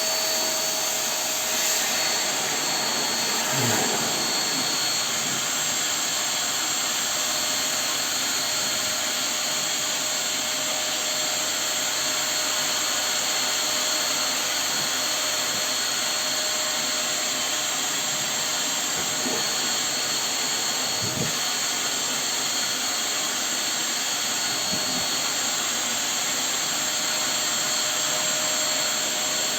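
Vacuum cleaner running steadily: a constant rushing noise with a steady whine from its motor.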